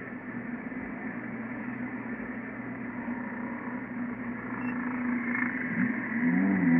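1974 Ford Pinto's engine idling steadily, heard from inside the cabin. Near the end the engine note rises a little as the revs come up.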